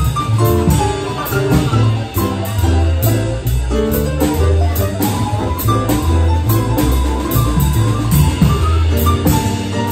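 Live jazz combo playing without vocals: piano over a double bass line of steady, even notes, with drums keeping time on a ride cymbal.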